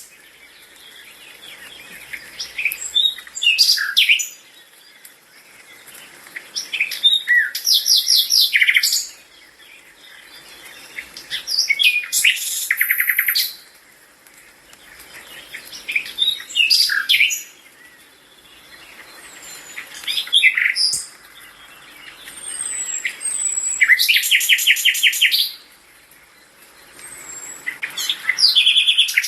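A songbird singing: short, loud phrases of chirps and fast trills, repeated about every four seconds with brief pauses between them.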